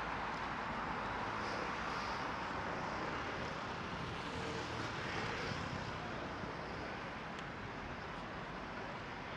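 Steady rushing noise of a passing vehicle, swelling up just as it begins and slowly fading away.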